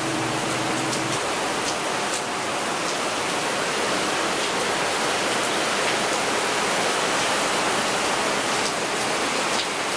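Heavy rain falling steadily, an even hiss with a few faint drop ticks.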